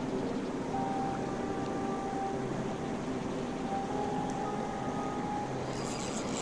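Steady rush of water pouring over a dam, an even, unbroken noise. A brief patch of light crackling or splashing comes near the end.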